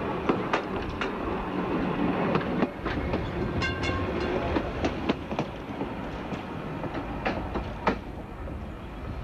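Dudley, Stourbridge & District single-deck electric tram No. 5 passing close by, its wheels rumbling and clicking over the rail joints. A brief high ringing tone sounds about four seconds in, as it goes by.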